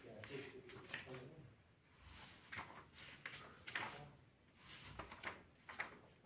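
Paper rustling as the pages of a textbook are turned and handled, a string of short swishes and crinkles.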